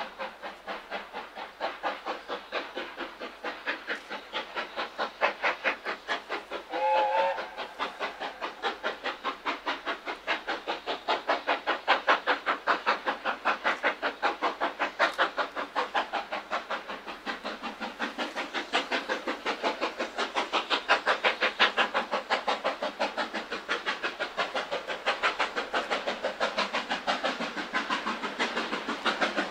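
BR Britannia class 4-6-2 steam locomotive 70013 Oliver Cromwell, its two-cylinder exhaust beating in a rapid, steady rhythm that grows louder as it approaches. A short whistle blast sounds about seven seconds in.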